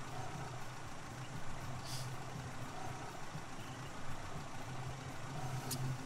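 Steady low hum inside a car's cabin, with the car's engine running. A faint short click comes near the end.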